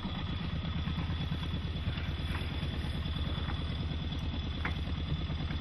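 A sailboat's engine running steadily, a low, even rumble with a fast pulse.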